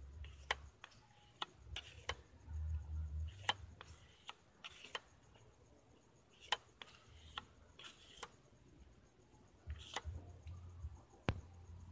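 Clear plastic bag crinkling and clicking as it is handled and folded: irregular sharp clicks and short crackles, over a low rumble from the handling.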